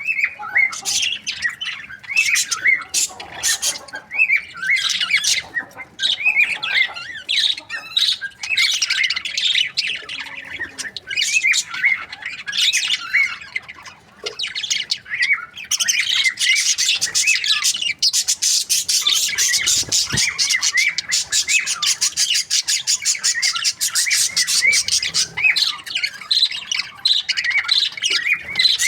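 Budgerigars chirping and squawking as a group, many short warbled calls overlapping, getting denser and more continuous from about halfway through.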